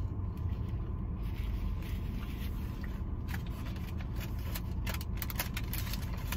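A person chewing a mouthful of sandwich, with soft mouth clicks and smacks that come more often in the second half, over a steady low rumble inside a car.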